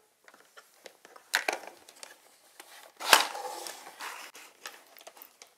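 Hard plastic toy parts clicking and knocking as a yellow plastic staircase is handled and fitted onto a plastic dollhouse. There are a few light clicks, with louder knocks about a second and a half in and about three seconds in.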